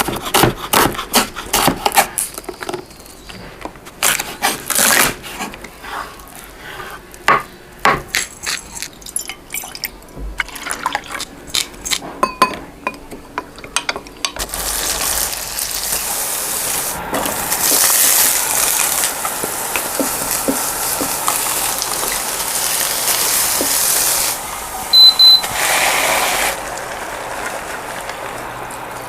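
Kitchen work sounds: for about the first fourteen seconds, a quick, irregular run of sharp knocks and clinks, like utensils or a knife on a board. Then a steady, loud sizzle from food stir-frying in a hot pan, with a couple of louder short bursts a few seconds before the end.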